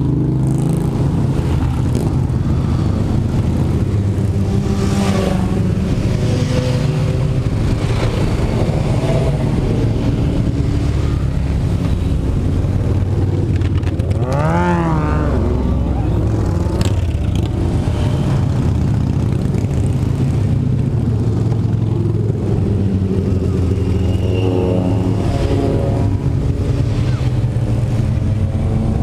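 A stream of motorcycles riding past, sport bikes and cruisers, their engines running in a steady low blend. About halfway through, one bike revs sharply up and back down.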